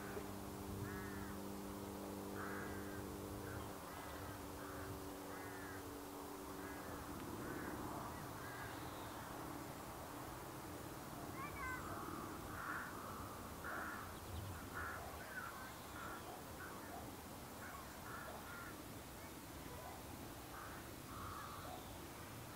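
Crows cawing over and over, many short harsh calls. A steady low hum of several tones is also heard in the first few seconds and dies away by about seven seconds in.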